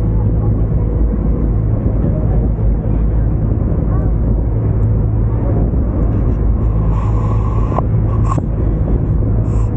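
Tourist river boat's engine running steadily as the boat cruises, a loud low rumble mixed with wind noise on the deck.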